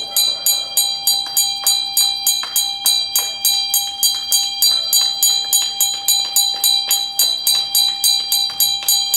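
A metal hand bell rung steadily at about three strikes a second, its ringing carrying on between strikes.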